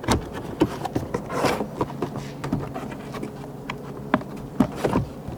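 Plastic interior door trim panel of a Jeep Wrangler JL being handled against the door as it is fitted: scattered light clicks, taps and rubbing, with a couple of sharper knocks near the end.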